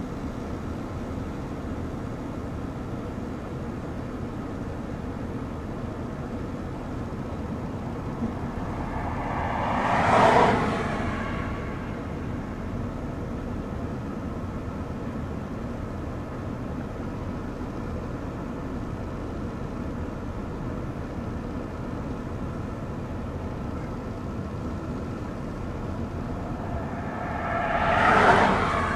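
A steady low rumble, with two vehicles passing, each swelling to a peak and fading away: one about ten seconds in, one near the end.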